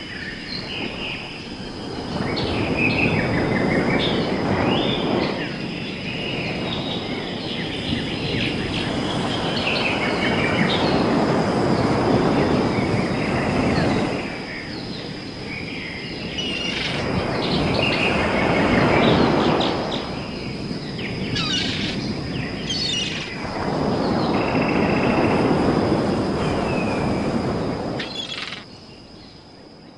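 Birds chirping over a rushing noise that swells and fades every few seconds, with a faint steady high-pitched tone; it all fades out near the end.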